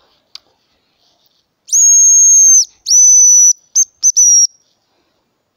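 Homemade hazel grouse call being blown, imitating the hazel grouse's song: two long, thin, high whistles, then a few short quick notes. Loud and close.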